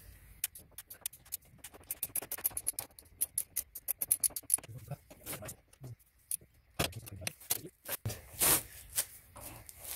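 Rapid, regular clicking of a ratchet wrench loosening the last clamp bolt of the motorcycle's lower fork triple clamp, followed after a pause by a few metal knocks and a short scrape.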